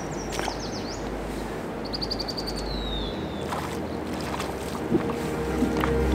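Flowing river water, with a songbird calling: a short warbled phrase just after the start, then a run of quick high notes ending in a falling trill about two seconds in.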